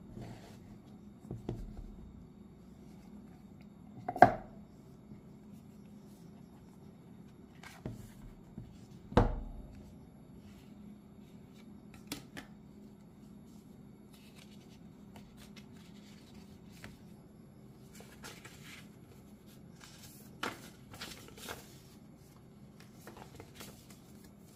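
White cardboard AirPods Pro box and its paper inserts being handled and opened: scattered knocks and taps, the loudest about four seconds in and another about nine seconds in, with lighter clicks and paper rustling later on. A faint steady hum sits underneath.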